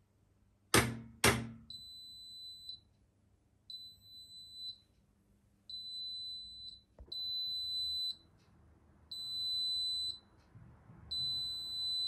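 Electrolux top-loading washing machine sounding its end-of-programme signal: six steady high-pitched beeps, each about a second long, coming about every two seconds. Two loud clicks come just before the first beep.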